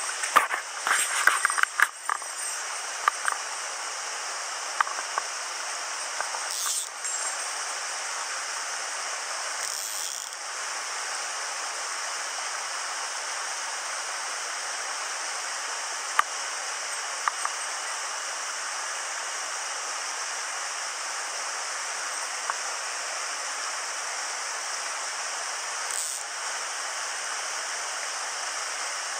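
Headwater mountain stream running over boulders and small cascades: a steady rush of water. A cluster of clicks and knocks comes in the first two seconds, with a few single sharp ticks later.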